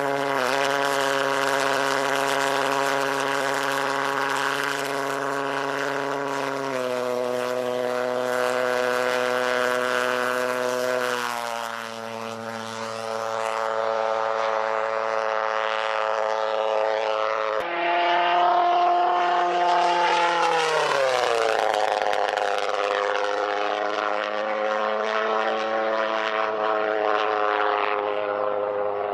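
Pulse jet engine of a radio-controlled jet plane running with a loud, steady buzz. Its pitch shifts abruptly a few times, and about two-thirds of the way through it glides down.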